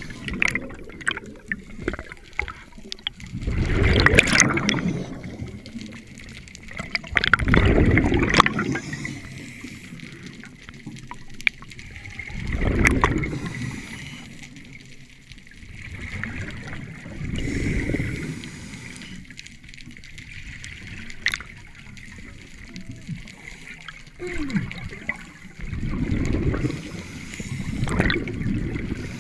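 Scuba diver breathing underwater through a regulator: a bubbling exhalation about every four to five seconds, with quieter stretches between them and a few faint clicks.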